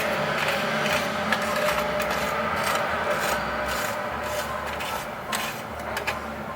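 A steady rubbing noise that eases off about five seconds in.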